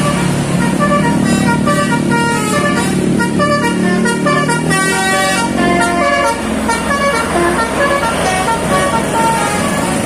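Telolet bus horn, a multi-tone horn on an Indonesian coach, playing a quick melody of short notes at changing pitches, over the steady rumble of the passing bus's engine and motorcycles.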